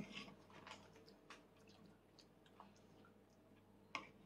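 Near silence with a few faint clicks of a metal spoon against a toddler's plastic plate, and a sharper click near the end as food is scooped.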